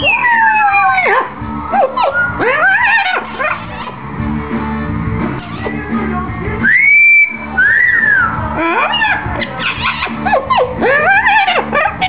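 Amazon parrot singing: a busy run of whistled notes gliding up and down, with a long held whistle about seven seconds in, followed by a short arching whistle.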